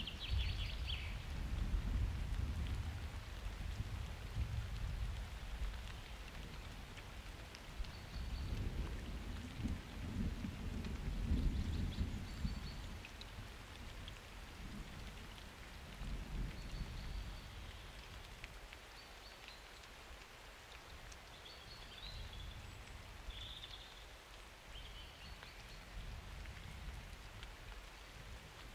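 Steady summer rain falling, with distant thunder rumbling in slow low swells, the strongest about two and eleven seconds in, then dying away.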